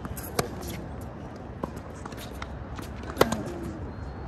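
Tennis rally: sharp pops of a racket striking the ball and of the ball bouncing on the hard court, a few seconds apart, the loudest about three seconds in.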